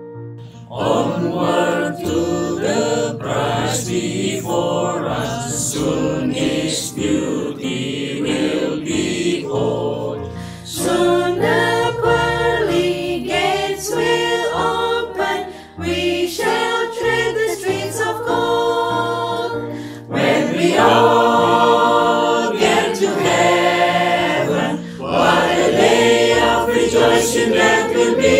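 A choir of mixed voices singing a hymn in harmony, coming in about a second in and going in phrases with short breaks between them.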